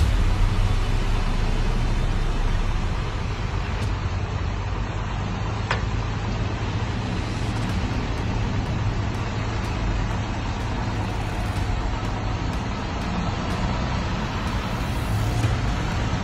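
Steady low rumble of truck and car engines idling in stopped highway traffic.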